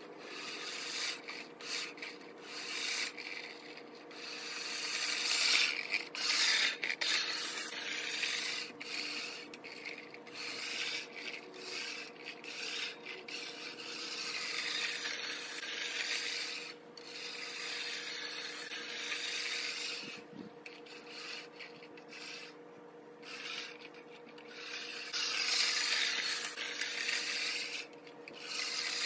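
Earthwise 7-blade push reel mower cutting Bermuda grass, its spinning reel shearing the blades against the bed knife in a continuous rasping whir. The sound swells and fades several times as the mower is pushed toward and away.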